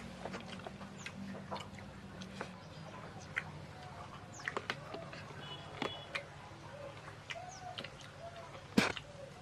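Scattered light clicks and clinks of plates and drinking glasses while people eat, with a sharper clink near the end. Birds call in the background, with short repeated calls in the second half.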